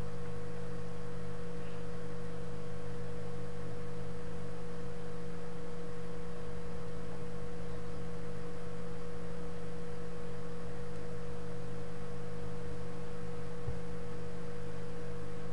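Steady electrical hum: a few fixed low tones and one higher tone, unchanging throughout, with faint hiss beneath.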